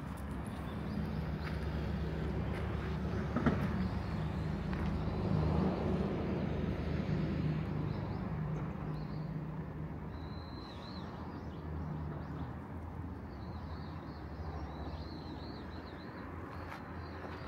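A motor vehicle's engine hums steadily, growing louder for a few seconds and then fading. There is a single sharp click about three and a half seconds in. Birds chirp in the second half.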